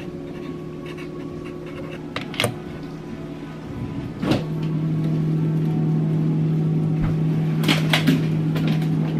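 A microwave oven started with a click about four seconds in, then running with a steady low hum. A few sharp clicks and knocks come before it starts and again near the end.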